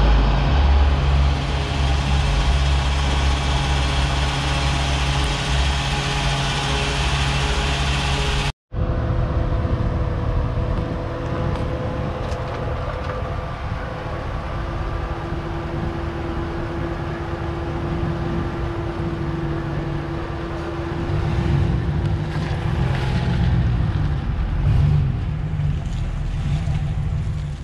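A fuel pump hums steadily as a plastic jerrycan is filled. After a sudden cut, the 5.7-litre HEMI V8 of a Dodge Ram pickup runs steadily, heard up close.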